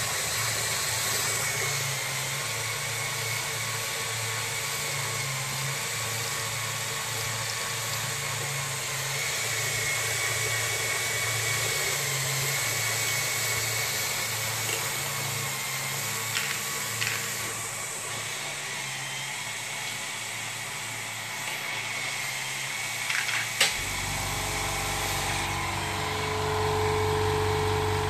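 Lego Technic motors and conveyor belts of a ball-handling machine running with a steady whir and a few clicks. About 24 seconds in this gives way suddenly to a small twin-head air compressor running with a steady hum.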